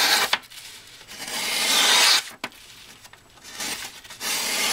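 Kershaw Turbulence folding knife's mirror-polished edge slicing through a sheet of printer paper in a sharpness test. Each long slicing stroke is a hiss lasting about a second, with one about a second in and another starting near the end.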